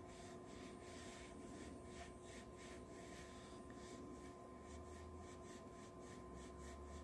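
Faint, quick swishing strokes of an oval makeup brush buffing makeup into the skin of the cheek and jaw, several strokes a second.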